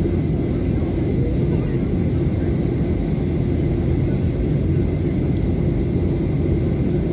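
Steady low cabin roar of a Boeing 737-800 in flight, heard from a window seat over the wing: the sound of its CFM56-7B jet engines and the air rushing past the fuselage.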